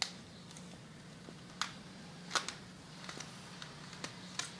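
A few sharp, separate clicks and taps, about five in all, over a steady low hum.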